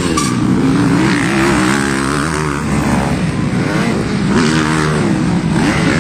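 Motocross dirt bike engines racing on the track, revving so that their pitch rises and falls.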